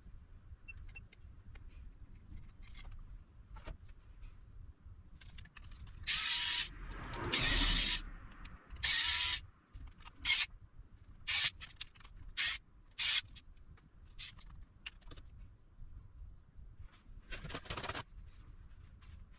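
Spray can hissing in repeated bursts, first a few long sprays and then several short ones, with one more near the end.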